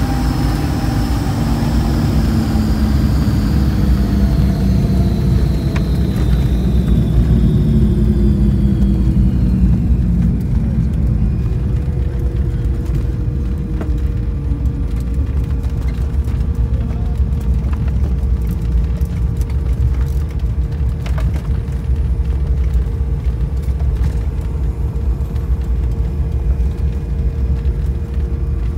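Twin piston engines and propellers of a Cessna 402C heard from inside the cabin, with their pitch falling over about the first ten seconds as the aircraft slows on the runway after landing. They then settle into a steady drone with a constant whine while the plane taxis.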